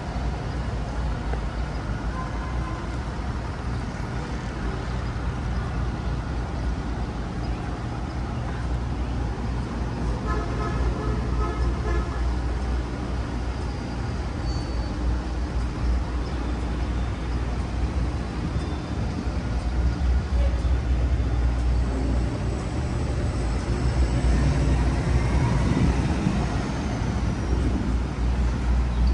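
City street traffic: a steady low rumble of passing motor vehicles, with a short horn-like tone about ten seconds in and the rumble swelling louder from about 24 seconds in.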